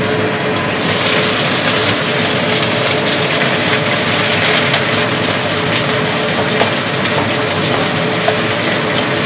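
Fish sizzling as they fry in oil in a wok over a gas flame, the sizzle growing brighter and louder about a second in as the lid comes off. A steady hum runs underneath.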